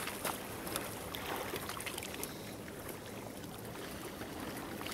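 Steady faint hiss of lake water at a rocky shore, with a few light clicks as a wire-mesh crayfish trap is handled and opened.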